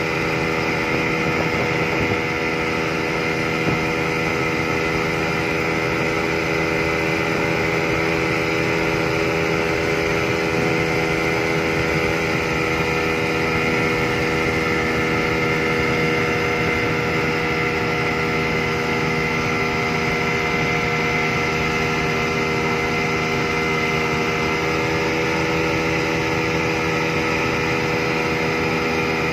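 Yamaha 200 hp two-stroke V6 outboard motor running at a steady high throttle, with the rush of water and spray from the boat at speed.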